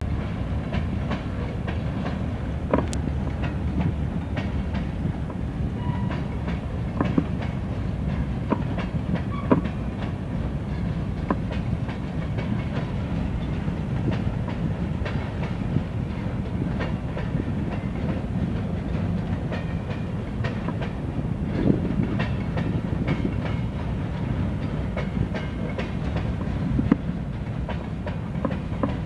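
Freight train of covered hopper cars rolling past: a steady low rumble with irregular clicks and clanks of wheels over rail joints, and a couple of brief faint squeals.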